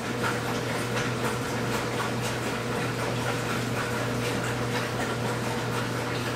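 Steady hum of a laundry machine running, with faint irregular clicks over it.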